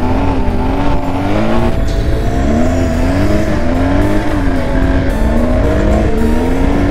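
BMW GS Adventure's boxer-twin engine running at road speed, its pitch rising and falling in waves with the throttle, over a steady low rumble.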